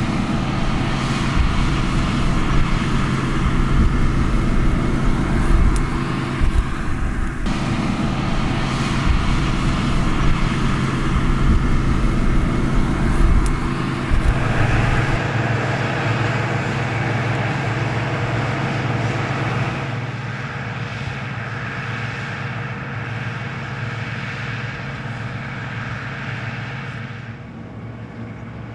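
New Holland combine harvester's engine and machinery running steadily under load, a constant droning hum with a heavy low rumble that drops away about halfway through, then the sound eases slightly near the end.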